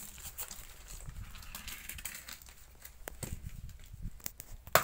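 Curved billhook knife chopping into the fibrous husk of a palmyra palm fruit: a series of short, irregular knocks, with a louder sharp strike near the end.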